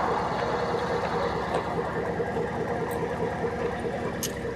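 Vehicle engine idling steadily at the roadside, with a short click about four seconds in.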